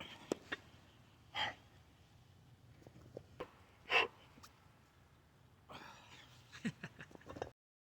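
A person's short, sharp breaths through nose and mouth, two louder ones about two and a half seconds apart, with a few faint clicks between and a rougher run of breathing near the end.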